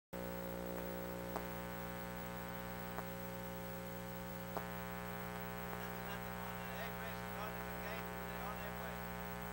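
Steady electrical mains hum, a low buzz made of many even overtones, on the soundtrack of an old 1987 recording. Three faint clicks come in the first half, and faint wavering voice-like sounds rise underneath in the second half.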